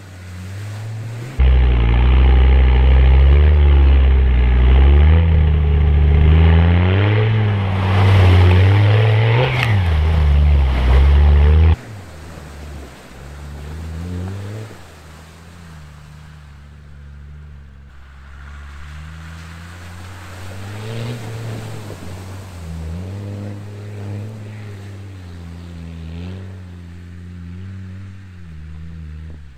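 A Land Rover Defender 90's Td5 five-cylinder turbodiesel engine revving up and down as it drives through a muddy water crossing and up a sandy bank, with water splashing. It is very loud from about a second in until about twelve seconds in, then fainter, its pitch rising and falling with the throttle.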